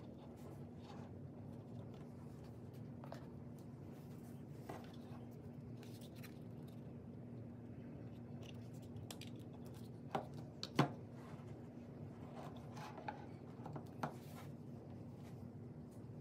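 Light plastic clicks and scrapes from handling a DJI Air 2S flight battery and its charging hub as the battery is fitted into a hub slot, with two sharper clicks a little after ten seconds in. A steady low hum runs underneath.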